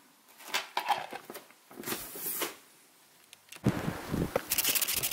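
Light scraping and crinkling of a plastic shark fin antenna shell being handled, its adhesive pads pressed down. About three and a half seconds in, this cuts to louder outdoor noise, with a quick run of scratchy rasps near the end.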